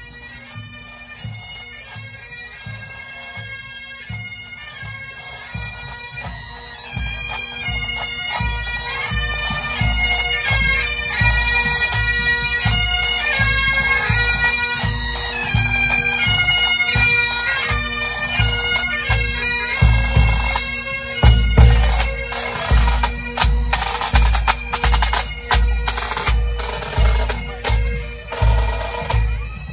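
Pipe band playing a tune on Highland bagpipes over their steady drones, with a bass drum keeping an even beat. The band grows louder as it approaches, and the drums are loudest in the second half.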